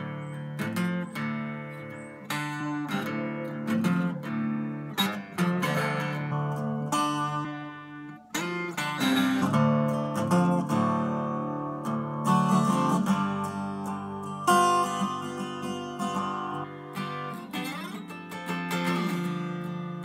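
Seagull spruce-top 12-string acoustic guitar played solo, mixing strummed chords with picked single-note phrases. Each attack rings out with the doubled, chorus-like shimmer of paired strings.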